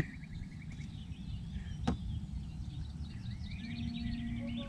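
Outdoor background: a steady low rumble with faint bird chirps, one sharp click about two seconds in, and a short steady hum near the end.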